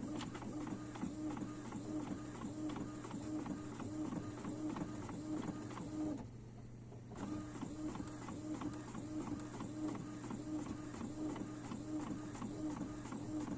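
Epson XP-series inkjet all-in-one printer printing: the print head carriage shuttles back and forth in a steady rhythm of about two to three passes a second over a low motor hum, stopping for about a second roughly halfway through before it resumes.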